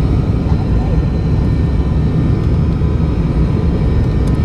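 Turboprop airliner's engines and propellers heard from inside the passenger cabin on the descent to land: a steady, loud low rumble with faint steady whining tones above it.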